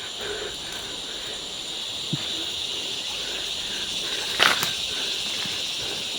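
Steady high-pitched chirring of night insects, with one loud sharp crack about four and a half seconds in.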